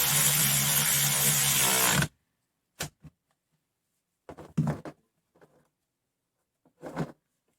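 RUYIKA cordless 3/8" drive ratchet running steadily for about two seconds as it winds a nut back on and tightens it, then stopping abruptly; the owner judges the tightening nowhere near its rated 65 newton metres. A sharp click and a few brief handling sounds follow.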